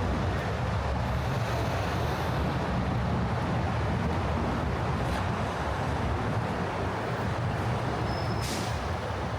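Steady low rumble of city traffic, with a short hiss near the end.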